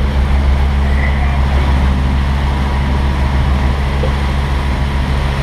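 A sailing catamaran's engine running steadily as the boat motors along, a low even hum, with wind and water rushing past.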